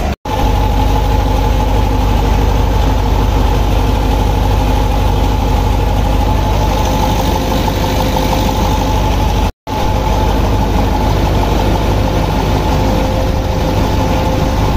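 Kirovets K-700 tractor's diesel engine idling steadily just after being started, a deep even rumble with a steady hum on top.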